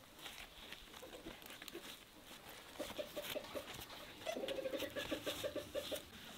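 Soft rustling and tapping of lavash flatbread sheets being folded over the rice. A bird calls in a rapid pulsed series twice: briefly about three seconds in, then longer and louder from about four to six seconds.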